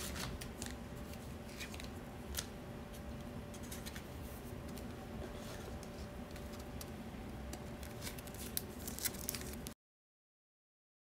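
Faint ticks and soft slides of baseball trading cards being handled and sorted on a table, over a steady low hum. The sound cuts out completely near the end.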